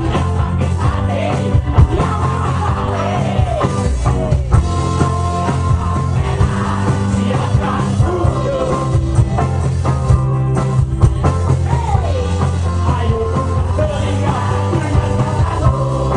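Rock band playing live: electric guitars with a lead singer, and steady percussive beats under them.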